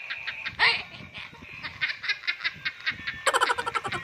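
A young boy laughing hard in short repeated bursts, breaking into a rapid run of laughs near the end.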